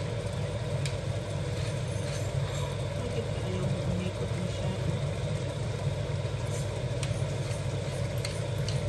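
A hand pepper mill twisted over a pan of tomato sauce, with faint scattered ticks over a steady low hum.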